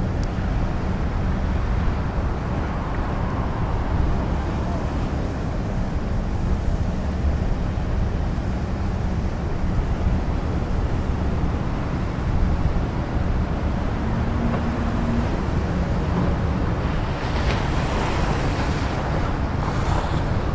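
Wind buffeting the microphone: a steady low rumble with a faint, constant hum beneath it.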